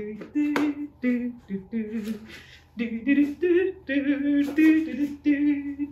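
A woman singing a bouncy tune unaccompanied, in short held notes with brief breaks between them.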